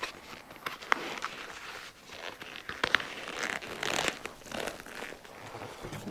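A headrest's new seat cover rustling and crinkling as it is stretched and worked over the headrest by hand. There are a couple of sharp clicks, the loudest about a second in and about three seconds in.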